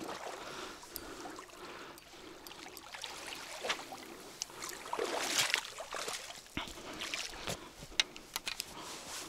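Water splashing and sloshing in short irregular bursts as a hooked fish is brought to the bank and landed, with scattered clicks and knocks among it; the loudest splashing comes a little past the middle.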